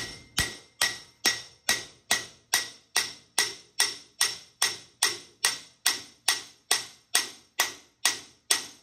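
Hammer blows on the front wheel hub assembly of a Ford 6.0 Powerstroke truck, knocking the unbolted hub loose from the steering knuckle. The metal-on-metal strikes come steadily, about two or three a second, each with a short ring.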